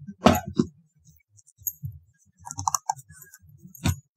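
Thin plastic coffee-table parts knocking and clicking as the top is pressed down onto the legs: sharp knocks about a third of a second in and near the end, with lighter clicks a little past the middle.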